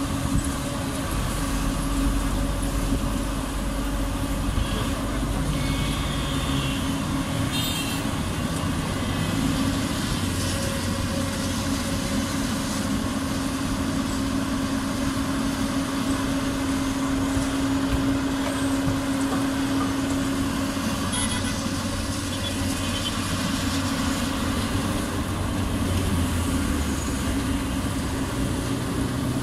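Doosan crawler excavator's diesel engine running steadily under working load, its note shifting now and then as the boom and bucket move. A short knock about eight seconds in.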